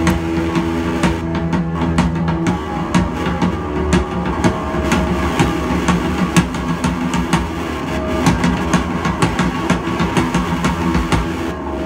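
Live band playing: sustained electric guitar notes over a steady run of drum hits.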